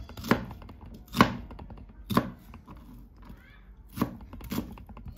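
Kitchen knife dicing an onion on a plastic cutting board: separate, unevenly spaced knife strikes on the board, roughly one a second, the loudest a little over a second in.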